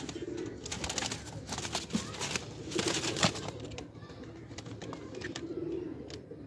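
Domestic pigeons cooing in low hums, three times, with a run of sharp clicks and scuffs through the first half, loudest a little after three seconds in.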